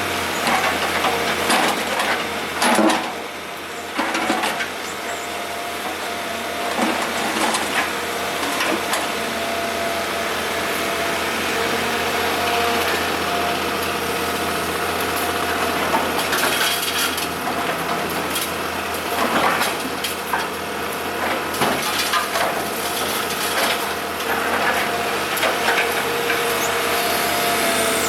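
Kobelco SK125W wheeled excavator's engine running steadily while it works broken asphalt, with irregular crunches, scrapes and knocks of asphalt rubble against the steel bucket.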